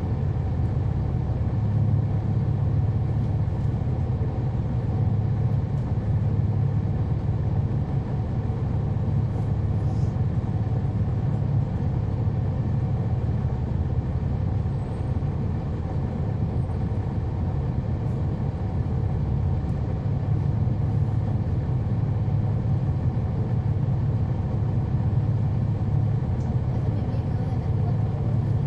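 Inside a 2011 NABI 40-SFW transit bus, its Cummins ISL9 diesel engine running: a steady low drone that holds an even level and pitch.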